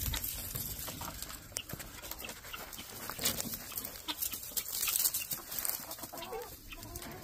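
Chickens clucking, with many short rustles and pecks in straw bedding as they go after a treat dropped among them.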